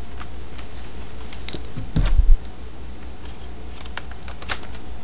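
Small clicks and knocks of a DVD player's plastic parts being handled and pried apart, with a cluster of low thumps about two seconds in, over a steady low hum.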